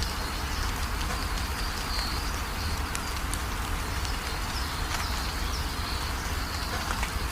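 Steady morning rain pattering with scattered drops ticking, over a low rumble. Short high chirps recur throughout.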